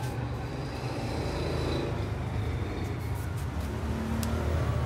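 A steady low rumble with a faint noisy haze over it and a few light clicks.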